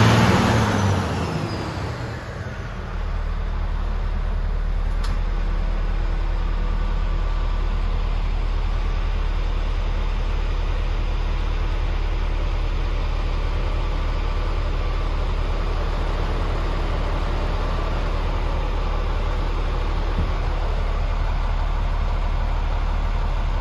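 Scania R440's 13-litre straight-six diesel running at idle, heard from inside the cab. A loud surge at the start dies away with a falling whine, and the engine settles into a steady low idle about three seconds in. One sharp click about five seconds in.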